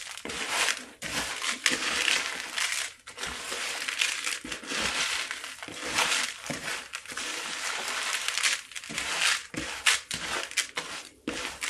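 A hand stirring gritty potting mix of small lava rock and grit in a plastic bowl: an uneven, unbroken gravelly scraping of small stones against each other and the plastic.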